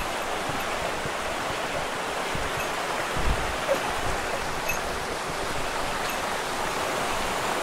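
Mountain river rushing steadily over rocks, a constant white-water hiss. A couple of soft low thumps sound about three seconds in.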